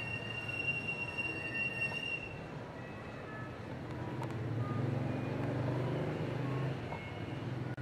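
An engine hums under steady outdoor background noise, swelling in the second half and easing off near the end. A thin, steady high tone runs through the first two seconds and then stops.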